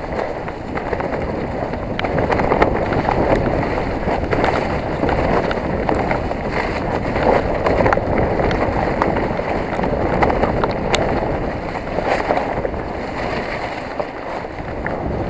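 Mountain bike descending a rough trail at speed: a steady rush of wind on the microphone and tyre noise over dirt and stones, with frequent small rattling clicks from the Specialized Enduro 29's frame and chain.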